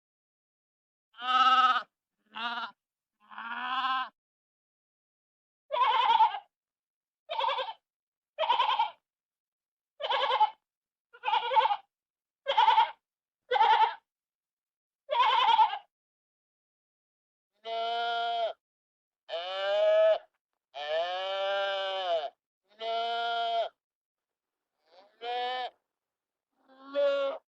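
Sheep bleating: a run of about sixteen separate bleats with silence between them. The first ones are short; from about halfway on the bleats are longer and lower-pitched.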